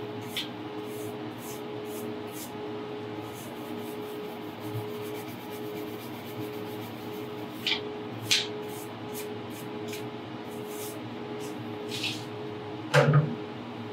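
A small plastic wire brush scrubbing pipe threads at a wellhead in quick, short scratching strokes, over a steady hum. A louder knock comes near the end.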